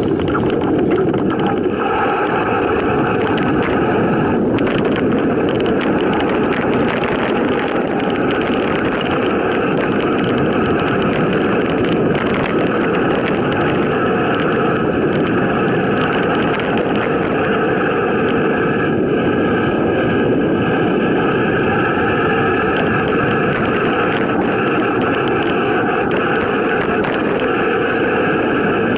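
Mountain bike riding downhill on a dirt forest trail: a steady rush of wind and tyre noise with frequent small knocks and rattles from bumps.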